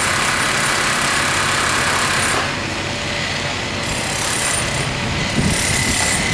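Steady noise of heavy machinery running on a lifting site, most likely the mobile crane's engine, with a loud hiss on top that cuts off about two and a half seconds in, leaving a lower, steady rumble.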